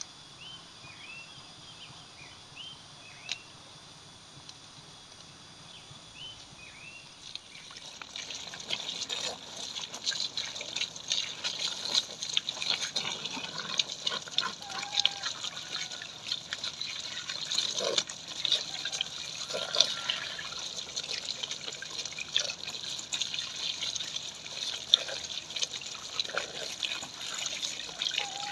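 Water splashing and trickling in a plastic basin as green eggplants are rubbed and rinsed by hand. The splashing starts about a quarter of the way in; before that there are only a few faint high chirps.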